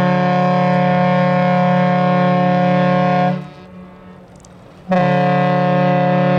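The ship's horn of the car ferry Badger sounding a long, steady blast that stops about three and a half seconds in, then after a pause of about a second and a half a second long blast begins.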